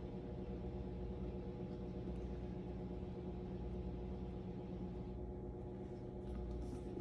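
Steady low hum made of several even tones, with faint scratching strokes of a fine paintbrush on the vinyl doll head in the last couple of seconds.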